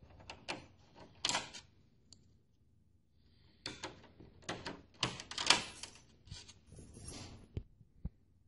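Screws being driven by hand with a screwdriver into the sheet-metal drive cage of a Gateway 2000 486SX desktop case: irregular clicks and short scraping turns of the tool. They come in two bouts, with a pause of about two seconds between them.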